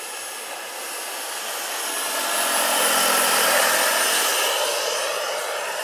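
Turbine engine and rotor of a large scale-model Eurocopter EC-120 B Colibri helicopter flying past: a steady high whine and rush of air that swells to its loudest about three and a half seconds in, then fades.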